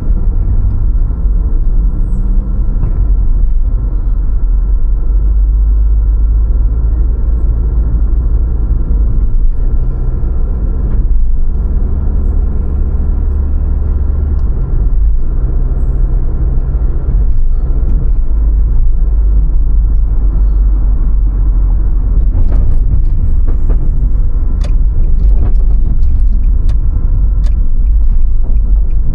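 A car driving on city streets, heard as a loud, steady, low rumble of road and engine. Scattered sharp ticks come in over the last several seconds.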